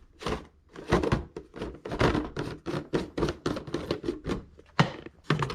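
A quick, irregular run of clicks, knocks and clatters, several a second, as small tools and supplies are handled and rummaged through.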